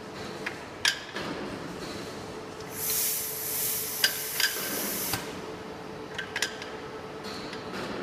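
Pneumatic telescopic mast retracting: compressed air hisses out for about two and a half seconds from around the middle. Sharp metallic clicks of the tube sections and locking collars come before, during and after the hiss.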